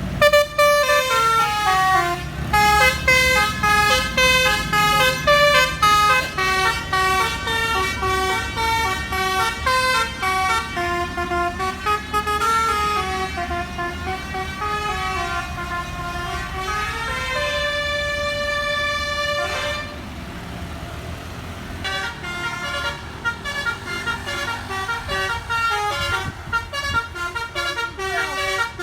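Indonesian bus 'telolet basuri' musical air horn playing a long tune of stepped notes, with an engine running underneath. The tune stops about two-thirds of the way through and starts again with quicker notes.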